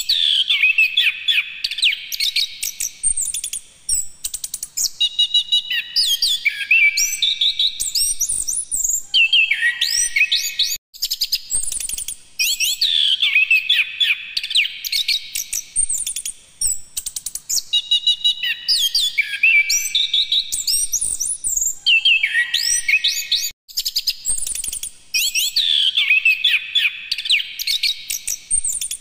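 Chestnut-capped thrush (anis kembang) singing continuously: rapid, varied phrases of high, sliding whistled notes, broken by brief pauses every few seconds.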